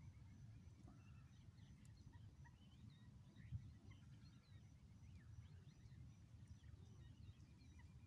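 Faint, scattered bird chirps and twitters from a reed marsh, with one brief low knock about three and a half seconds in.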